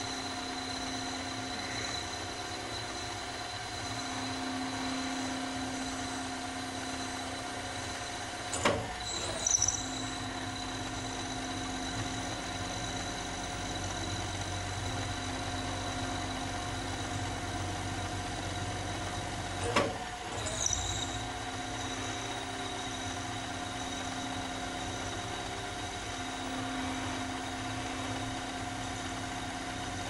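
Sieg Super X3 mill-drill, CNC-converted and used as a lathe, running with its spindle at about 800 RPM as a lathe tool takes a light, slow-feed pass on a 6061 aluminum bar: a steady machine whine. A sharp click with a brief hiss comes about nine seconds in, and another about twenty seconds in.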